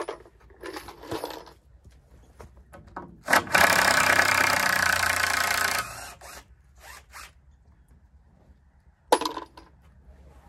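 Cordless drill running steadily for about two and a half seconds, backing a screw out of a wooden board that holds a plastic tarp. Short sharp clicks and knocks come before and after it, with one loud knock near the end.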